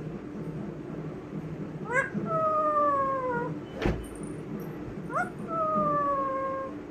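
Pet parrot calling twice, each call a quick rising squawk that slides into a long, slowly falling whistle-like note. There is a sharp click between the calls.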